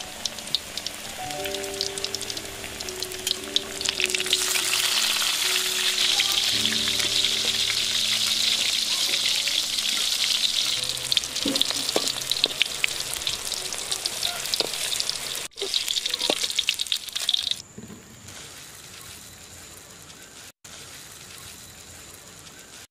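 Cassava pieces frying in hot oil in a wok: a steady sizzle with crackles, loudest from about four seconds in and much quieter over the last few seconds. Soft background music plays through the first half.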